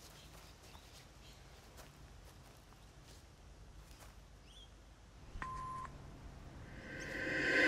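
Quiet outdoor ambience with a few faint ticks. About five and a half seconds in, a single electronic beep lasts about half a second. Music then swells in over the last second.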